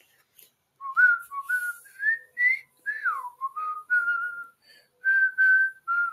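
A person whistling a tune: a string of short, clear notes, some sliding up or down, beginning about a second in.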